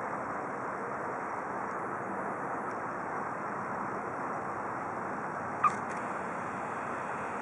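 Cessna 152's light-aircraft engine and propeller at idle during the landing roll-out, a steady even rush. A brief sharp chirp about five and a half seconds in.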